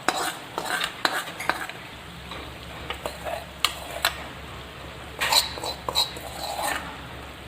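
A spoon scraping and knocking against metal pans as spiced oil, fried garam masala and chilli powder, is poured and scraped into the frying chicken, with a light sizzle. The knocks come in scattered clusters, busiest near the end.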